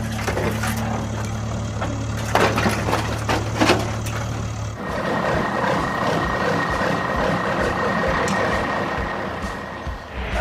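A small machine engine running steadily with scattered clicks. About halfway through, its sound changes to a steadier, higher-pitched whine.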